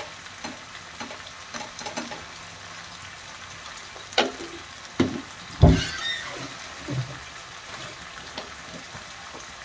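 Kitchen utensils clinking and knocking against pans, with a louder thump about five and a half seconds in, over a low sizzle of frying onions and tomatoes in the kadhai.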